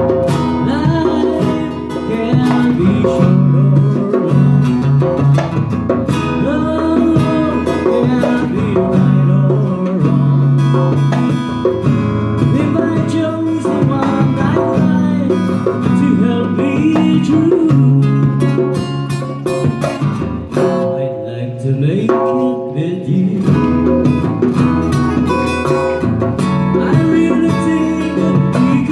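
Live acoustic band: strummed acoustic guitar and a hand-played djembe accompanying a singing voice.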